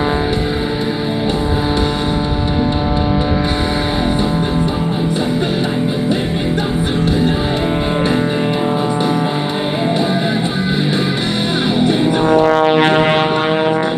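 Rock music with electric guitar, played loud and steady.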